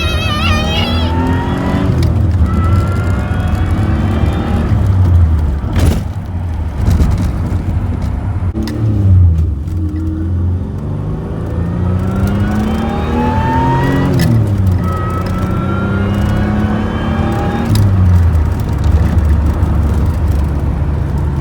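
Supercharged GM 3800 V6 in a Pontiac Fiero accelerating through the gears on a test drive. The engine note and a higher whine rise in pitch, then drop back at each shift, several times over, and the engine runs smoothly now that the misfire is fixed.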